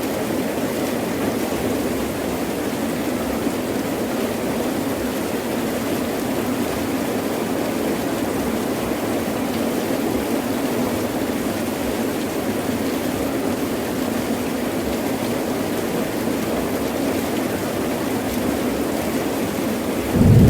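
Heavy rain in a steady downpour, an even hiss of falling water. Right at the end a low rumble of thunder breaks in loudly.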